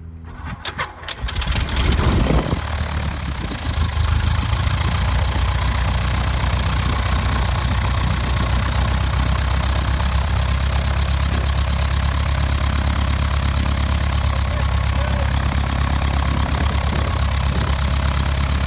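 The 1966 Cessna 150F's Continental O-200 four-cylinder aircraft engine is cranked and fires unevenly for a second or two, then catches and runs steadily. It is the engine's first run after sitting for over four years.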